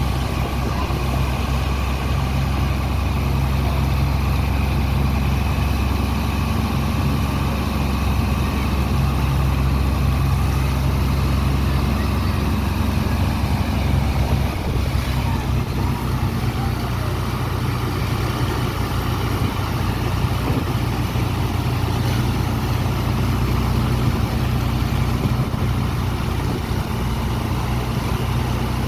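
Large diesel engine of a sand-dredging pump running steadily at constant speed, a deep even drone that does not change.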